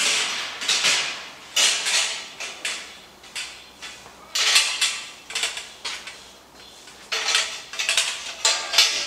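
A stack of welded 4130 chromoly steel-tube seat frames clanking and rattling against each other as they are lifted and carried, in several bouts of metallic clatter with the tubes ringing.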